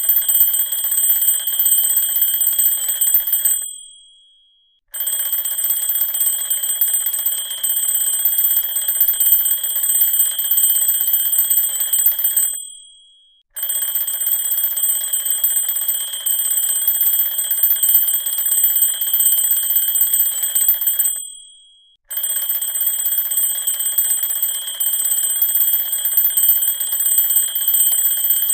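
Alarm clock ringing in long rings of about seven to eight seconds, each dying away, with a pause of about a second between them. The rings repeat several times.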